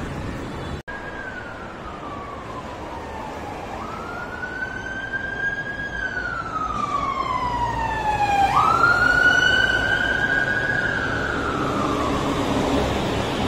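A siren wailing in about three slow sweeps, each rising quickly and falling away over a few seconds, over a steady low rumble that grows louder about two-thirds of the way through.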